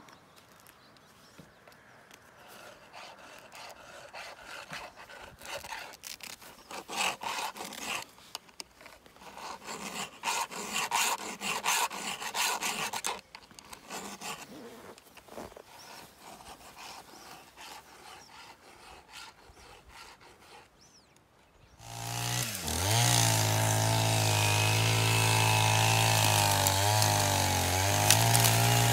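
A round file rasping in repeated strokes across the teeth of a Sachs-Dolmar chainsaw's chain, sharpening it. About three-quarters of the way through, the saw's two-stroke engine starts up loud and runs steadily.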